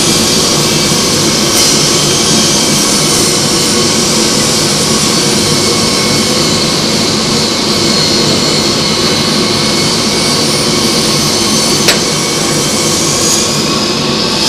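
Loud, steady hiss of steam pouring into a plastic steam bag wrapped around a wooden hull plank, which is being steamed soft so it can be bent into place. A single sharp click about twelve seconds in.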